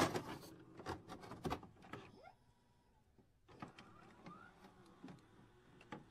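Faint glitch sound effects of an animated loading-screen intro: quick clicks and ticks, bunched in the first two seconds, with a couple of faint short rising bleeps. The clicks thin out after a brief near-silent pause in the middle.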